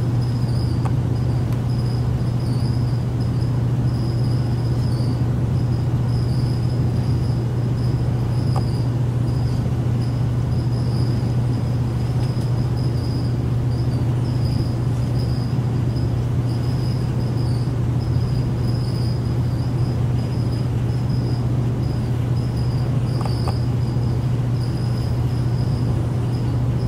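Steady low mechanical hum with a faint high-pitched whine above it.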